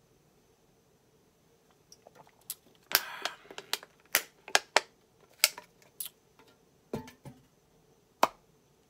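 An empty aluminium soda can being crushed in the hand: a string of sharp crinkles and pops starting about two seconds in, with a denser crunch about three seconds in and a last crack near the end.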